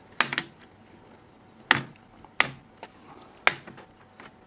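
Plastic retaining clips of a Dell Mini 10v 1018 netbook's palm rest snapping loose as a credit card is pried along the seam: sharp clicks, three in quick succession at the start, then single snaps spaced about a second apart.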